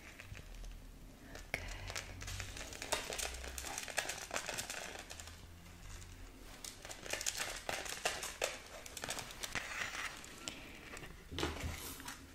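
Close-miked handling of a necklace on its kraft-paper display card: paper crinkling and rustling, with many small irregular clicks and taps.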